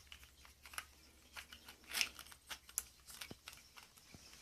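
Faint handling noise: scattered small clicks and short rustles, the loudest about two seconds in.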